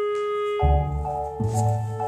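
Background music: held mallet-keyboard tones, then about half a second in a fuller track with a pulsing bass and chords comes in.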